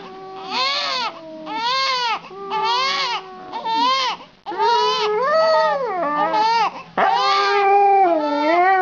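A newborn baby crying in repeated short rising-and-falling wails, with a Siberian husky howling along in longer, steadier held notes. The longest held note lasts about two seconds near the end.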